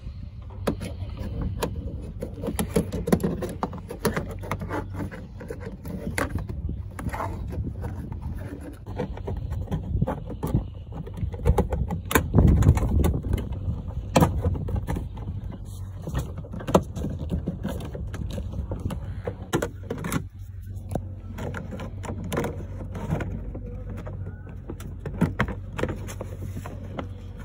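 Irregular clicks, knocks and scrapes of hands working on a truck's interior door panel and handle, over a low rumble of the phone being handled and rubbing against clothing. The knocks are loudest about twelve to fourteen seconds in.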